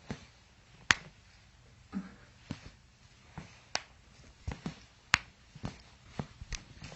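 A series of sharp clicks and small pops, about a dozen and irregularly spaced, with a soft low thud about two seconds in.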